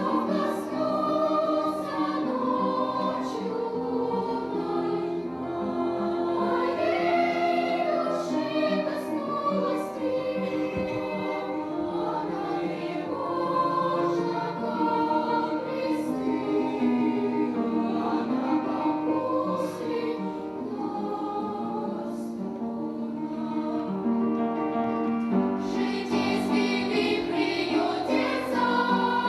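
Children's choir singing a slow Russian song in several voice parts with long held notes. It swells fuller and louder near the end.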